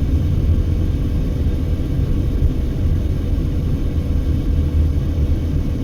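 Steady low road and engine rumble of a moving car, heard from inside the cabin, with a faint steady hum above it.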